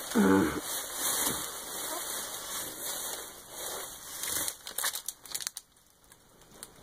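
Tissue paper crinkling and rustling as hands dig through a box, with a few sharper crackles about five seconds in, then dying down. A short voice sound comes right at the start.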